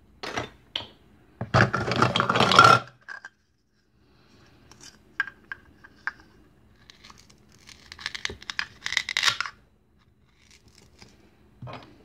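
Velcro tearing as plastic toy food pieces are pulled apart: one long rip about a second and a half in, and a softer one later, with light clicks of hard plastic pieces knocking together.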